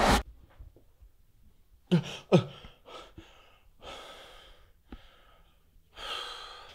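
A man moaning and breathing heavily in his sleep while dreaming: two short falling moans about two seconds in, then breathy sighs.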